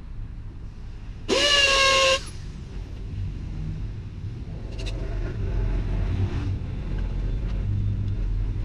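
A car horn sounds once, a steady honk of about a second, over the low rumble of passing road traffic.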